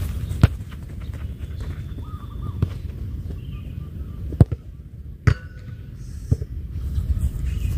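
A football struck hard by a football boot in a single sharp kick about half a second in, followed by several fainter knocks. A steady low rumble of wind on the microphone runs underneath.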